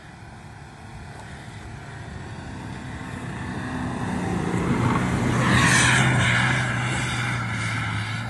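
Off-road 4x4's engine running and growing steadily louder as it comes closer, loudest about five to six seconds in with a brief rushing hiss, then easing off a little.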